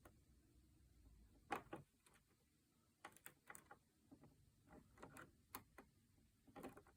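Faint, irregular clicks of a Sparrows Mace pick working the pin stacks of a Schlage deadbolt during single-pin picking, while the lock sits in a false set.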